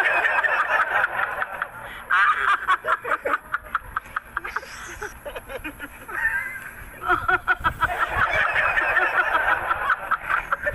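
People laughing in repeated bursts, the laughs coming in quick pulses with short breaks between them.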